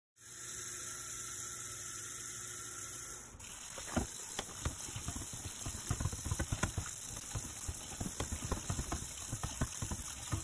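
Tap water running onto a stainless steel frying pan in a stainless steel sink. From about three seconds in, the pan is scrubbed under the stream to rinse off loose burnt-on food, with irregular knocks and scrapes of the pan against the sink.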